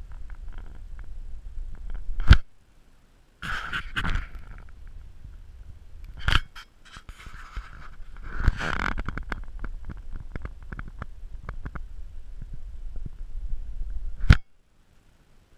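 Handling noise close to the camera: an arm or hand rubbing and brushing against it, with a sharp knock about two seconds in, two more around six and eight seconds, and a last one near the end. The sound drops out briefly after the first and last knocks.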